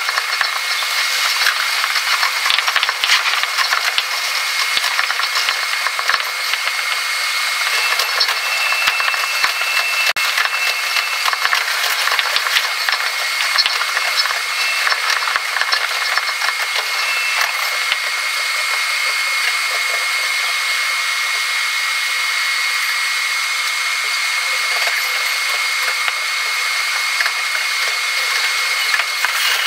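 Cab sound of a Tobu 50000-series electric train running along the line, sped up sixfold. It is a continuous high-pitched rattling hiss full of rapid clicks, with a steady thin whine running through it.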